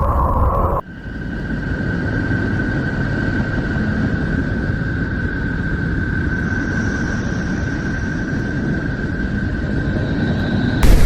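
Sonified space data: a dense, low-heavy rumbling noise with a steady high tone held over it, and a fainter, higher tone joining about halfway through. About a second in, it cuts in abruptly from a different droning sound, and a louder rushing noise cuts in at the very end.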